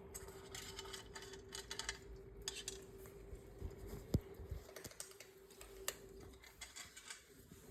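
Faint, scattered light clicks and taps, with a sharper knock about four seconds in, over a steady faint hum.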